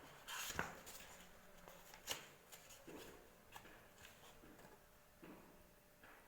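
Books being handled and set down one after another: a short rustle of covers and pages near the start, then a few light taps and knocks.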